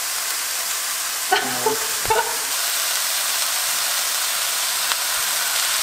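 Onions and mushrooms frying in olive oil in a pan, a steady sizzle, as tofu is crumbled into it by hand. A couple of brief knocks come about a second and a half and two seconds in.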